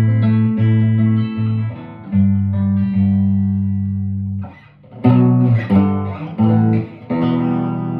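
1958 Guild Aristocrat hollow-body electric guitar being played: low notes and chords ringing out, then a short break about four and a half seconds in, followed by four short chord hits and a chord left to ring near the end.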